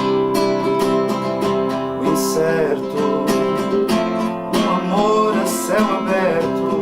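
Acoustic guitar strummed in an even rhythm, with a man singing over it in two phrases.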